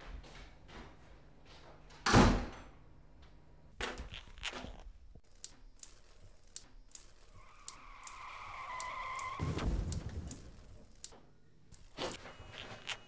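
A loud thud about two seconds in, then a few softer knocks, then a long drawn-out creak that ends in a heavy thump, with a few small clicks near the end.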